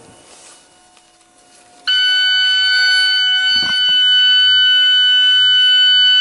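A loud, steady, high-pitched electronic warning tone comes on suddenly about two seconds in and holds without a break as the car is switched on. A brief knock sounds about halfway through.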